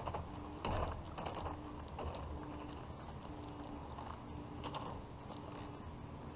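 Long-handled brush scrubbing a motorhome's side windows in irregular strokes, the loudest about a second in. A faint low tone pulses about once a second behind it.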